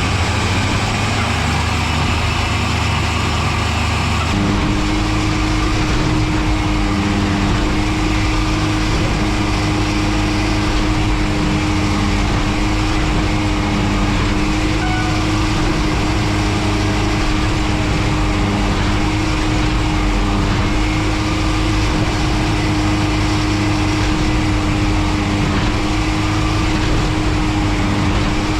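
Engine of a track maintenance machine running steadily. About four seconds in the sound changes abruptly and a steady hum comes in.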